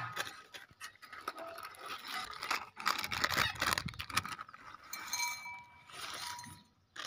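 Crinkly plastic snack packets rustling as dry fried snack mix pours and rattles into a tin cup, loudest in the middle.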